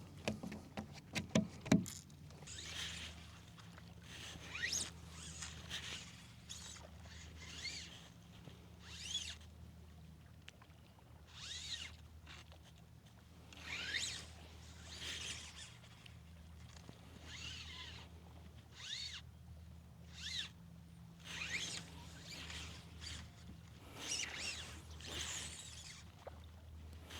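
Shallow water splashing and swishing in short strokes, repeating about every one to two seconds over a steady low hum. A few sharp clicks come in the first two seconds.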